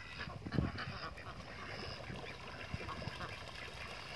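Ducks quacking in short, repeated calls, with a low thump about half a second in.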